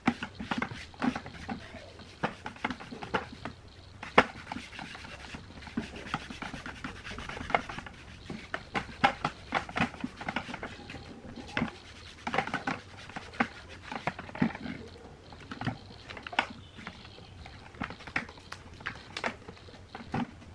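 Hands and a wadded cloth rubbing and pressing a black textured covering sheet down onto an MDF speaker cabinet: irregular scuffing and rubbing with many short, sharp clicks and taps.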